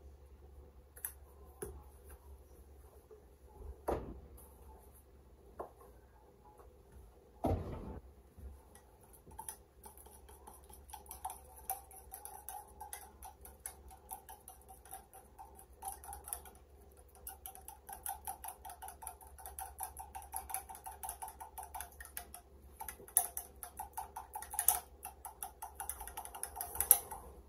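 A fork whisking eggs in a glass measuring cup: fast, continuous clinking of the utensil against the glass, starting about ten seconds in after a few separate knocks.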